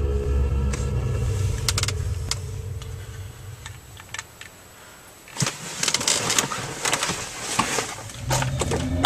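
A low steady hum inside a car fades away over the first few seconds. From about halfway in come scattered clicks, rattles and rustling, like things being handled inside the car.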